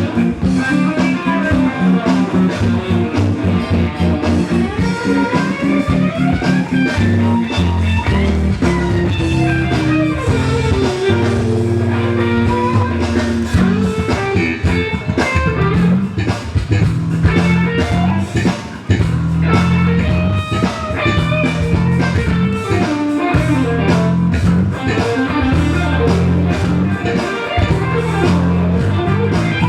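Instrumental soul-funk band playing: electric guitar lines over bass guitar and drum kit, with a steady groove.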